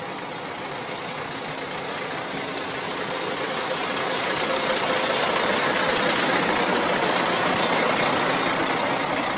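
A vehicle running close by, its engine and road noise growing steadily louder over the first five seconds or so and then holding.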